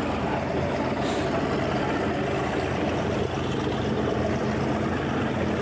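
A boat's engine running steadily as a low hum, with water and wind noise, heard from aboard.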